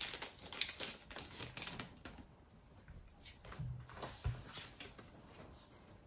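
Foil wrapper of a Pokémon booster pack crinkling and crackling as it is torn open and the cards are slid out, the crackles dense for the first two seconds, then sparse.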